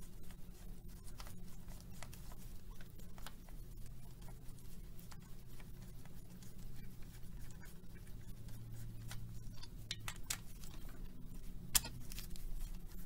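Light scattered clicks and taps of metal engine parts and hand tools being handled, with one sharper click near the end, over a low steady hum.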